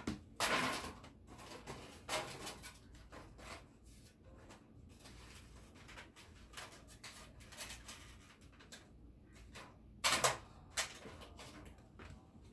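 Aluminium foil being pulled from its box and handled, crinkling and rustling in irregular bursts, loudest about half a second in and again near the end.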